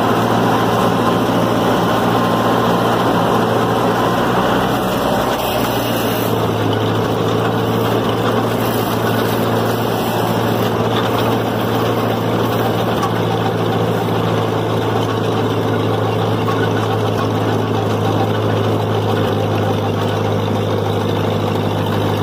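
Small vintage tractor's engine running steadily while pulling a manure spreader across a field, its tone shifting slightly about five seconds in.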